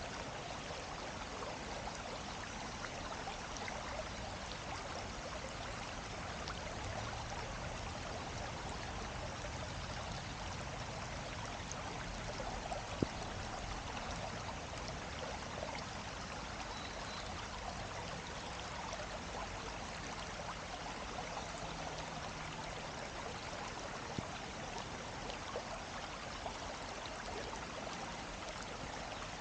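Running water flowing steadily, an even rushing hiss, with a couple of brief faint clicks.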